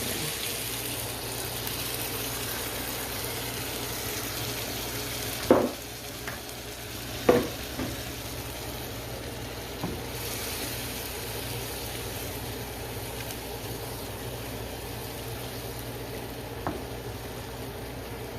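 Chicken and shrimp sizzling steadily in a pot of soy-garlic sauce on the stove. Two sharp knocks come about five and seven seconds in, with a few lighter taps later.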